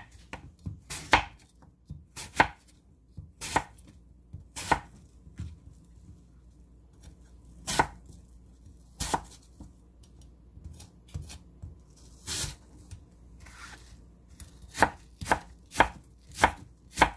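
Chef's knife slicing an apple on a thick wooden cutting board: sharp knocks of the blade meeting the board. They come about once a second at first, sparser in the middle, then in a quicker run near the end.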